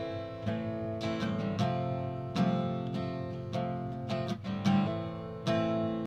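Acoustic guitar strummed in a steady rhythm, moving between an A minor and an F major chord.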